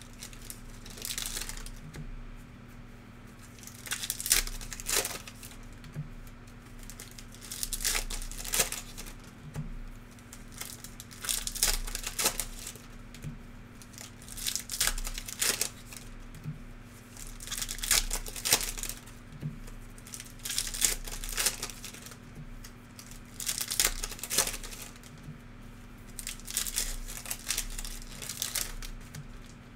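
Plastic and foil wrappers of trading-card packs crinkling and tearing as they are handled and opened, in repeated bursts every second or two.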